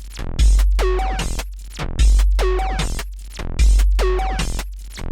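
Electronic music with a deep bass hit about every second and a half, each followed by quick falling sweeps.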